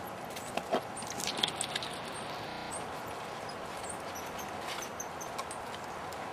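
Baby white-nosed coatis scrabbling on dry leaves and bark: a cluster of light clicks and rustles in the first two seconds, over a steady outdoor hiss.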